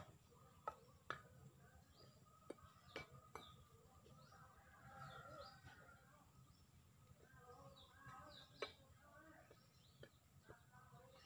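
Mostly quiet, with a few faint sharp clicks of a young squirrel gnawing food held on a hand. Faint bird chirps sound behind it.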